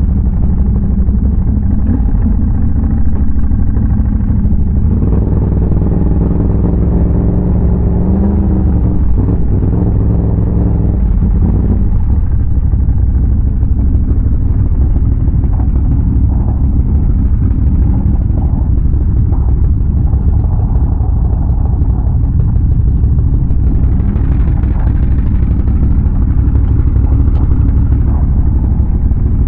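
Big-bore Can-Am Renegade ATV's V-twin engine running under way, its note rising and falling with the throttle, with a climb in pitch about eight seconds in.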